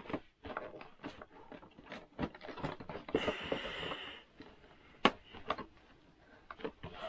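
Cardboard doll box being handled and its front flap folded open: a run of small clicks and taps, a rustling scrape about three seconds in, and a sharp snap about five seconds in.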